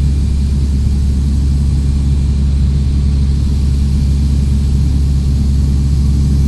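Cessna 172's piston engine and propeller running steadily in cruise, heard from inside the cabin as a loud, even drone.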